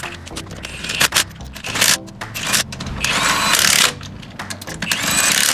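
Power tool run in several short bursts with a rising whine, spinning lug nuts onto a truck wheel.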